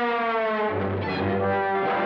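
Orchestral cartoon score led by brass: a downward slide in pitch, then steady held notes from about two thirds of a second in.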